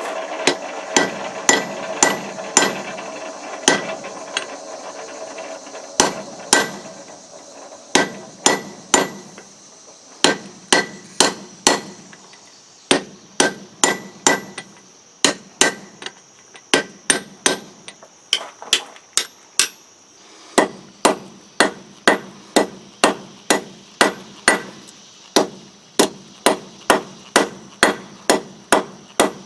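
Hand hammer striking a round fuller on steel against the anvil, setting divots around drilled screw holes so the screws sit flat. The blows come in runs of about two a second with short pauses between runs, and each blow leaves a bright metallic ring.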